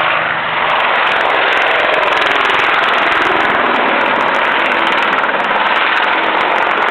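Apache attack helicopter manoeuvring overhead: a loud, steady rush of rotor and engine noise.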